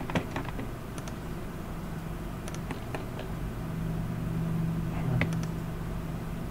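A few faint computer mouse clicks over a steady low hum of room tone, with the clearest click about five seconds in.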